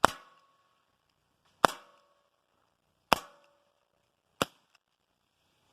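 Replica .357 Magnum pellet revolver firing four shots about a second and a half apart, each a sharp crack with a short ringing tail. The last shot is weaker.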